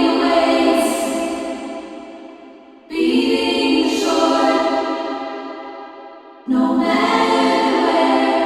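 Choir-like sung chords processed through the Spitfire Air Studios reverb: three held chords in turn, each swelling in and then fading away slowly over a few seconds.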